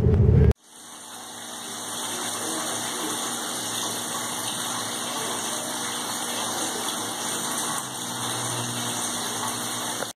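A tiered metal-leaf water fountain, water trickling steadily down its tiers with a faint low hum from its pump. It opens with half a second of in-car road rumble that cuts off abruptly.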